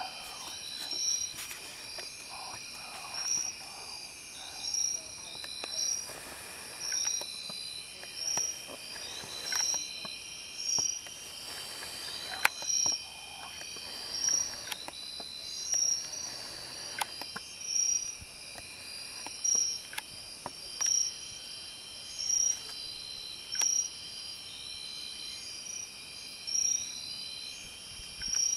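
Night insects chirping: a steady high trill under a repeated high chirp that comes about once every one and a half seconds. There is one sharp click about twelve seconds in.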